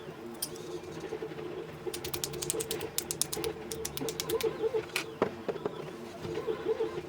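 A quick run of sharp mechanical clicks, about eight a second, like a ratchet, over a steady hum, followed by a few single knocks.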